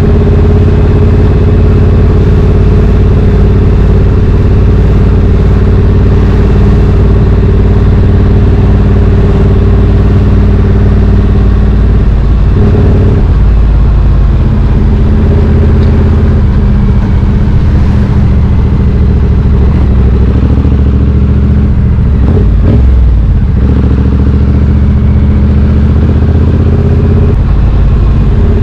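Triumph Street Twin 900's parallel-twin engine running through British Customs slash-cut exhaust tips, heard raw and loud on the bike. The engine note is steady, shifting briefly twice: a little before halfway and again about three-quarters through.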